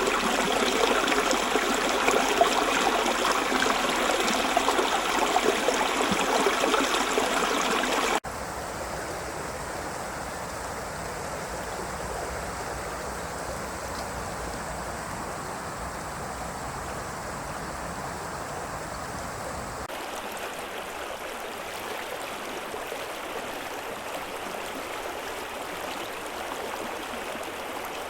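River water rushing and gurgling over rocks. It is loud for the first eight seconds, then cuts suddenly to a quieter, softer flow, and the character of the flow changes again abruptly near 20 s.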